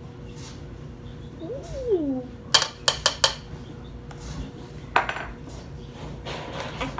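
A spoon clinking against a mixing bowl while slime ingredients are stirred: four quick clinks about two and a half seconds in, then one more near five seconds.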